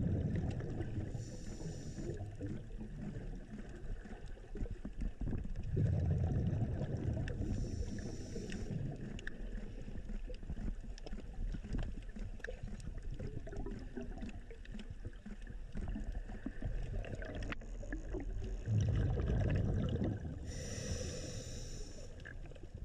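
Muffled underwater ambience picked up by a submerged camera: a steady water rush, with three louder low surges, each followed shortly by a brief hiss.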